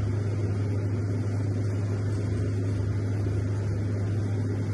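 A steady low hum with a faint rumbling haze beneath it, unchanging throughout, like a motor or machine running.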